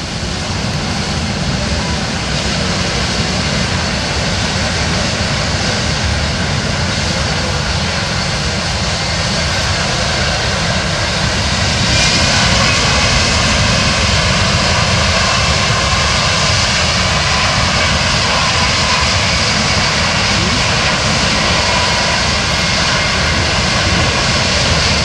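C-17 Globemaster III's four turbofan engines running on the ground in reverse thrust, pushing the aircraft backwards: a loud, steady jet roar that swells and grows brighter about twelve seconds in.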